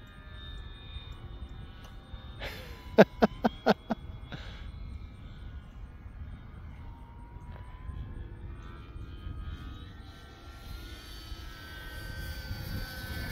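Electric RC warbird in flight: the Detrum 600KV brushless outrunner motor and three-blade propeller give a steady whine that rises in pitch about ten seconds in as the throttle is opened. Wind buffets the phone microphone, and a quick run of five short sharp pulses is heard about three seconds in.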